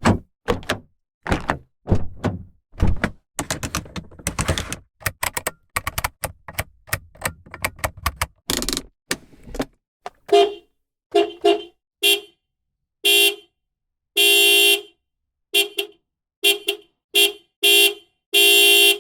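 A quick run of knocks and clicks, then a car horn honking about a dozen times, mostly short toots with a few longer blasts.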